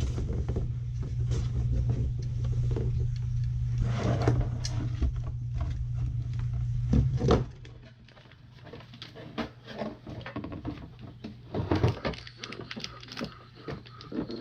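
Small plastic Lego pieces clicking and rattling as they are handled and pressed together. A steady low hum runs under them and stops about halfway through.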